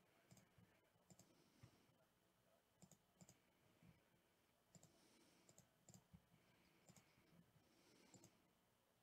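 Faint clicks of a computer mouse button, several times, often in quick pairs, in near silence.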